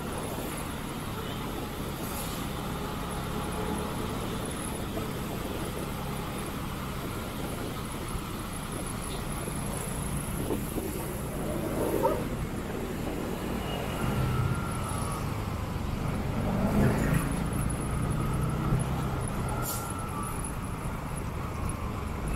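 Motorcycle engine running steadily while riding, with road traffic noise around it and a couple of louder moments about twelve and seventeen seconds in.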